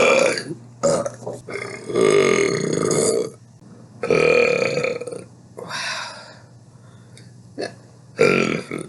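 A woman burping: about six separate loud belches one after another, most short, the longest drawn out for over a second.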